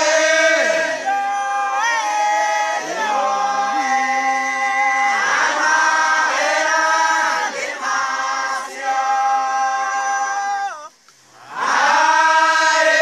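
A group of voices singing a praise song together in a regional language, unaccompanied, with long held notes and slides between them. The singing breaks off for a moment about eleven seconds in, then picks up again.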